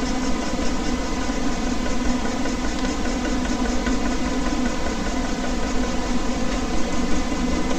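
Air conditioner running: a steady hum over an even whooshing noise.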